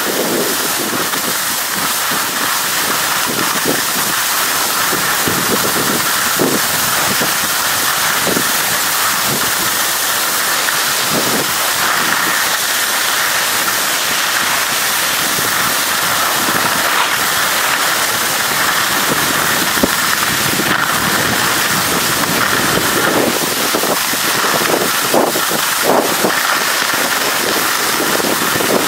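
Skis sliding and scraping over snow as a skier runs downhill: a steady hiss, broken by frequent short bumps, with wind buffeting the microphone.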